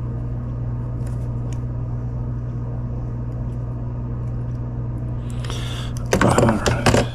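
Small scissors snipping double-sided electronics repair tape, with a few faint clicks about a second in, over a steady low hum. About six seconds in, a loud crackling rustle with sharp clicks lasting about a second as the scissors and the tape packet are handled.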